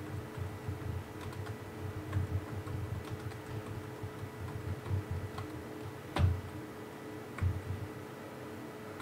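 Scattered soft taps and clicks at an uneven pace, like keys being pressed, with a sharper click about six seconds in and another a second later, over a steady electrical hum.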